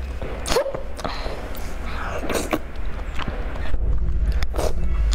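Close-miked eating sounds from a woman who has just choked on a bite of food: a few short throat and swallowing noises, with a steady low hum underneath.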